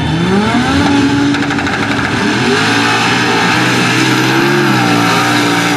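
Sand drag racing vehicles launching down a sand strip: engines revving hard, the pitch climbing near the start and again about two and a half seconds in, holding high, then falling just before the end.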